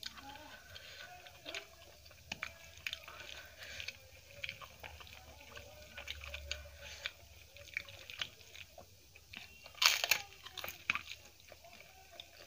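Close-up eating by hand: fingers squishing and mixing lemon rice with dal in a steel plate, with wet sticky clicks and chewing. The sound comes in many short, scattered clicks and crackles, with a louder cluster about ten seconds in.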